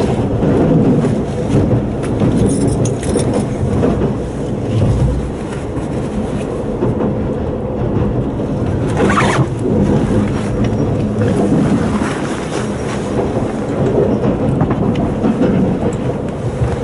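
Running noise of a JR Hokkaido limited express Lilac train heard from inside the passenger car: a steady rumble of wheels on rail with scattered clicks, and a brief louder rush about nine seconds in.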